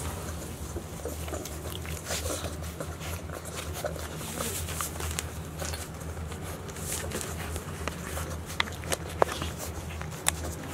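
Golden retriever puppies suckling at their mother's teats: soft wet smacking and clicking, with a few sharper clicks near the end, over a steady low hum.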